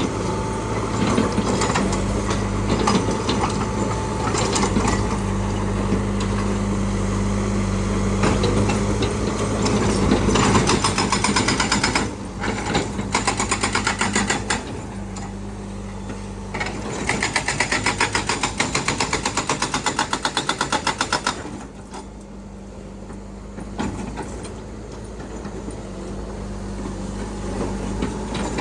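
Hitachi excavator's diesel engine running steadily, joined for several seconds in the middle by a fast, regular clatter, after which the sound drops somewhat in level.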